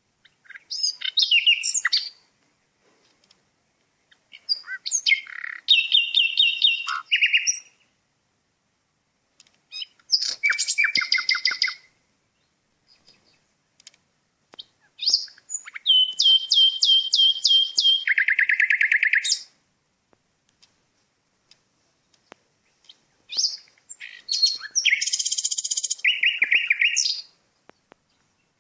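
A songbird singing, five separate phrases a few seconds apart, each a quick run of high repeated notes and trills with a pause after it.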